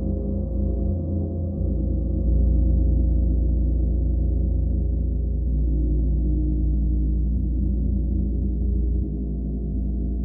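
Gong sounding in a continuous low, dense drone of many overlapping tones, with no separate strikes heard. It grows louder a little over two seconds in and eases back near the end.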